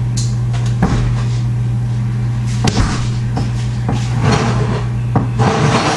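Refrigerator door being opened and shut, a few separate knocks and clatters, over a steady low hum.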